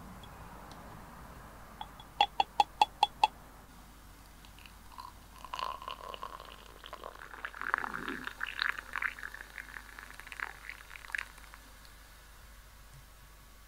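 Metal cooking utensils: six quick ringing taps in a row about two seconds in, then irregular clinking and scraping for several seconds.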